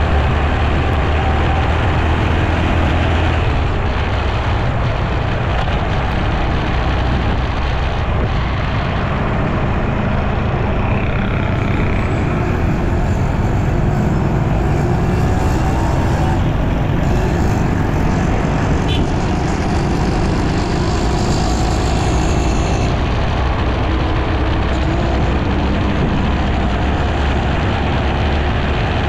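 Motorcycle running at road speed through city traffic: a steady engine and road rumble, with other motorbikes and vehicles around it.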